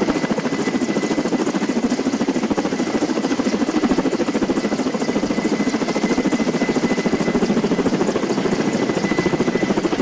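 Firefighting helicopter flying low overhead, its rotor beating in a rapid, even pulse with a thin steady whine above it.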